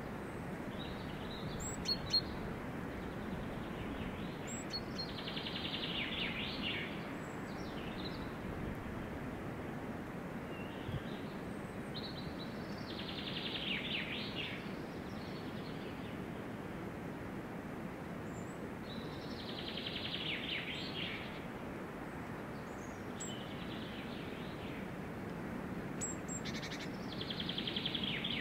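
A songbird singing the same trilled, down-sweeping phrase over and over, each phrase lasting a second or two and coming every few seconds, over a steady background hiss. Two sharp clicks about two seconds in.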